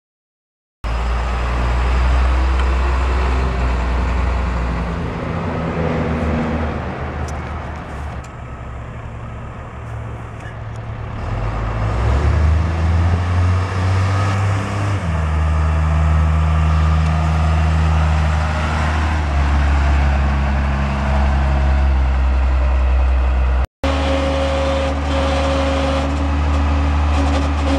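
International DT466 six-cylinder turbo diesel of a 1993 International 4700 bucket truck, running as the truck moves, its low note stepping up and down in pitch a few times. After a sudden cut near the end it runs at a steady idle.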